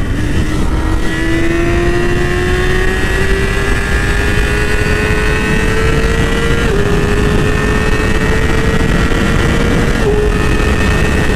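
Yamaha R6 sport bike's 600cc inline-four engine accelerating hard, its note climbing steadily. The note drops briefly at an upshift about two-thirds of the way in and again near the end, and keeps climbing after each. Heavy wind rushes over the microphone.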